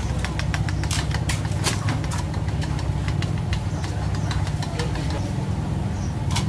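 A vehicle engine running steadily, a low even rumble, with a run of sharp clicks and clatter in the first couple of seconds.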